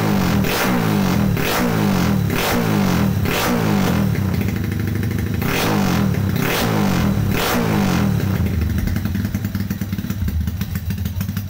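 Honda four-stroke motorcycle engine revved in quick repeated throttle blips through an aftermarket A&B racing exhaust, about two a second, then settling to an uneven idle about eight seconds in.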